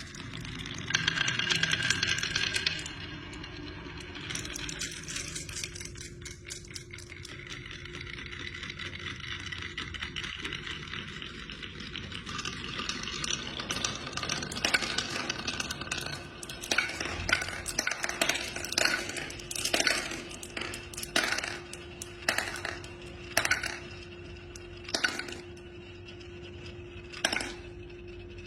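Wooden toy pieces clicking and clattering, then, from about halfway, a run of sharp separate knocks roughly once a second. A steady low tone sits underneath throughout.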